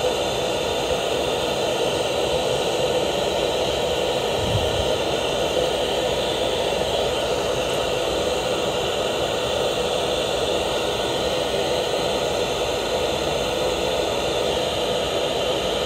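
Steady mechanical whir and hiss that holds an even level throughout, with no knocks or changes.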